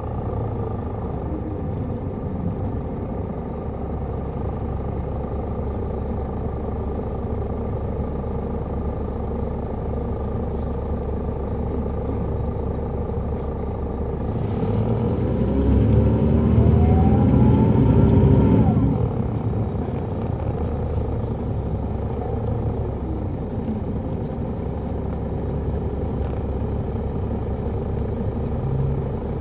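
Caterpillar C13 diesel engine of a 2007 MCI D4500CL coach, heard from on board, running steadily under way. About halfway through it grows louder and climbs in pitch for about four seconds as the bus accelerates, then falls back to a steady drone.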